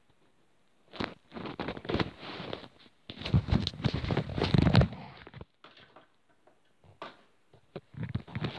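A phone being handled and repositioned right against its microphone: bursts of rustling, rubbing and small knocks, loudest about three to five seconds in.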